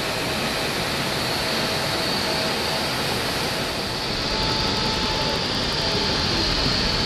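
Steady rushing jet aircraft noise with a high whine, a little louder from about four seconds in.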